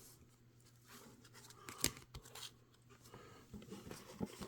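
Trading cards being handled: faint rustling and scraping, with a sharp click a little under two seconds in and a few lighter clicks.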